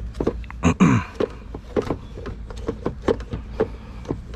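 Microfiber cloth scrubbing the inside of a plastic air filter box, making a quick run of short rubbing knocks, about three or four a second. About a second in, a louder squeak falls in pitch as the cloth drags on the plastic.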